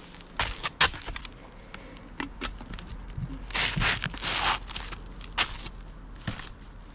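Footsteps in sneakers on a bitumen roofing-felt roof: scattered sharp scuffs and crunches, with two longer gritty scrapes a little after three and a half seconds in.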